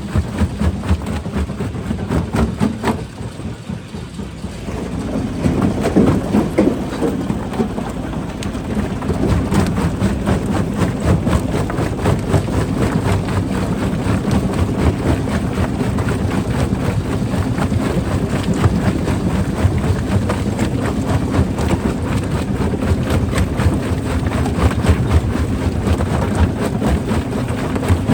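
Rock crusher at work: a dense clatter of rocks knocking and cracking over a steady heavy machine rumble. It eases briefly about three seconds in, then builds back up.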